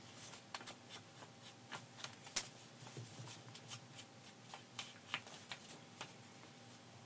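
Paper rustling with short scratchy taps as an ink blending tool is dabbed and rubbed along the edges of a paper envelope, and the envelope is turned in the hand. The taps come irregularly, with one sharper tap about two and a half seconds in.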